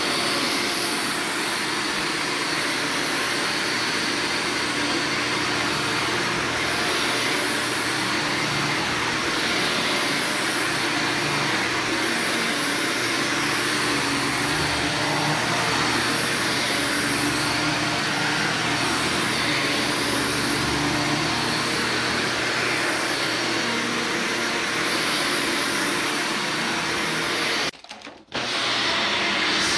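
Upright vacuum cleaner running steadily as it is pushed over carpet. The sound cuts out for about half a second near the end.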